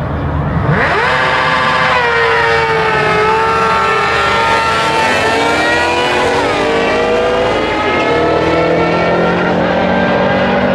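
Drag-race launch of a supercharged V8 Shelby Mustang GT500 and a Suzuki GSX-R inline-four sportbike at full throttle, starting suddenly about a second in. Engine pitch climbs steeply and drops back at each upshift, about three times.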